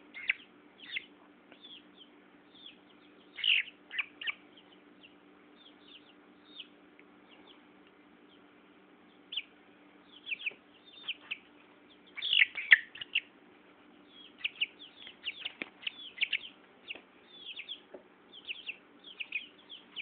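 Tetra Tint chicken chick peeping in short, high, falling chirps, a few at a time at first and then in quick runs through the second half, squealing as a beard is rubbed on her back.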